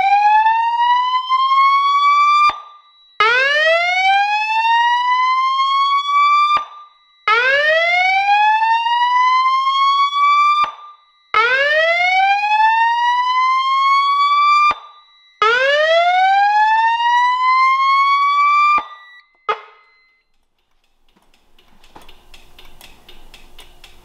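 Federal Signal 300GCX SelectTone speaker/siren sounding a whoop evacuation tone while the fire alarm panel is in alarm from a pulled pull station. It gives five slow rising sweeps, each about three and a half seconds long and cutting off sharply, one every four seconds. It stops about nineteen seconds in, followed by a short chirp, then faint clinking near the end.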